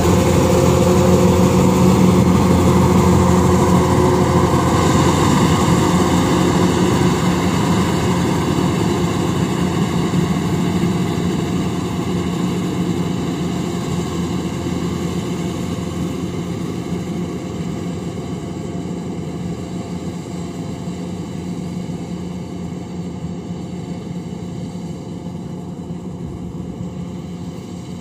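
Engine of a heavy farm machine running steadily at a constant speed, growing gradually fainter.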